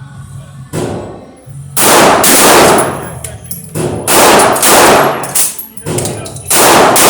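Gunshots at a shooting range: several loud shots in irregular succession, some close together, each echoing briefly, with fainter shots between them.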